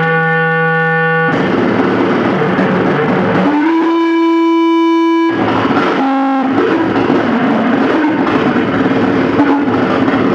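Harsh noise music: a loud, dense wall of distorted noise, broken by held electronic tones, one at the start, a longer one from about three and a half seconds in, and a short one near six seconds.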